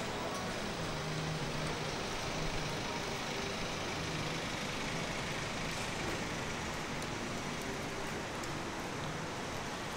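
Steady hiss of rain and wet-road traffic on a city street, with a low vehicle engine hum coming and going.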